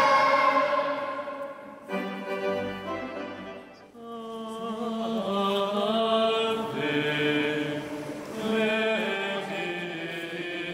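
Choir singing a slow liturgical chant on long held notes. A phrase dies away at the start, a new one begins about two seconds in, and a further phrase runs from about four seconds in.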